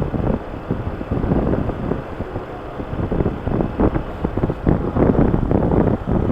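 Wind buffeting the microphone of a moving motorcycle, in irregular gusts, with the bike's engine running underneath.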